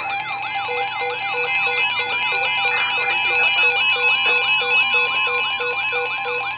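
Several NOAA weather radio receivers sounding their alert alarms together for a severe thunderstorm warning. Overlapping warbling sweeps repeat about three times a second over steady high tones, and a low beep about twice a second joins under a second in.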